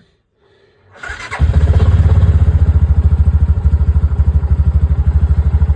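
2016 Massimo MSU500 side-by-side's engine cranking over about a second in, catching almost at once and settling into a steady, evenly pulsing idle.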